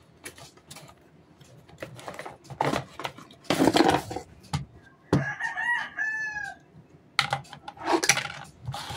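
A cardboard product box being handled and opened by hand: rustling, scraping and sharp taps of the box and its contents, loudest about three and a half seconds in and again near the end. About five seconds in, a drawn-out pitched animal call sounds in the background, first rising and then falling.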